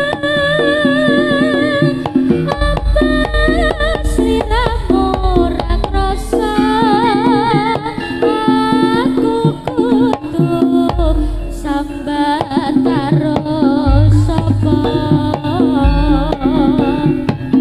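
Live Javanese jaranan music: a singer with a wide, wavering vibrato over kendang hand drums and gamelan, with deep low notes coming and going.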